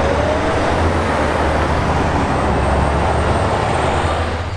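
City bus driving past close by: a steady, deep diesel engine drone with tyre and road noise, dropping off near the end.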